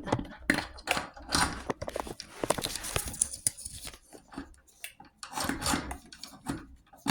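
Irregular clicks, knocks and rustles of a 16 mm film reel being taken off a projector's reel arm and slid back on the other way round.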